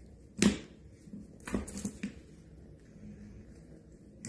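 Plastic ball toy knocking on a hard floor as a kitten bats and bites at it: one loud knock about half a second in, then a quick cluster of lighter knocks around the second and a half.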